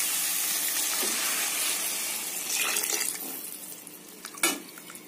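Water poured into a hot pan of fried radish rounds and spiced tomato masala, hissing and sizzling as it hits the pan; the sizzle fades after about three seconds. A single sharp click about four and a half seconds in.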